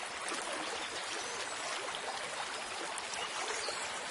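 A stream of water running steadily.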